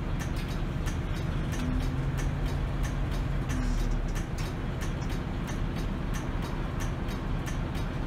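City bus running, heard from inside the cabin: steady engine and road rumble, with the engine note shifting briefly around the middle. A regular ticking about two to three times a second runs through it.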